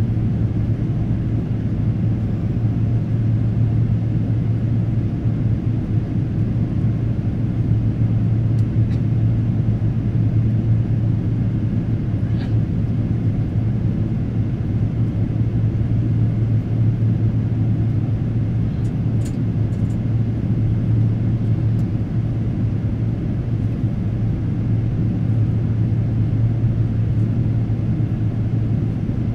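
Steady cabin noise inside a Boeing 777-300 airliner in flight: the even drone of engines and airflow with a strong low hum, and a faint tick or two about halfway through.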